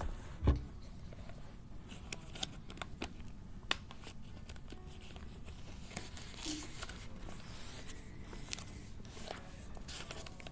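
Sheets of paper rustling and crackling as a stack of worksheets is handled and leafed through, with a low thump about half a second in.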